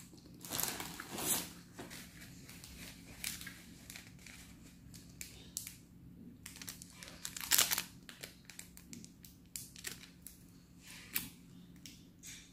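Small paper salt sachets being torn open and crinkled in the hands: a series of short rustles and tears, the loudest about seven and a half seconds in.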